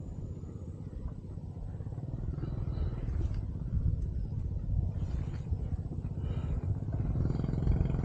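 A steady low rumble with a fine pulsing grain, with a few faint higher sounds over it.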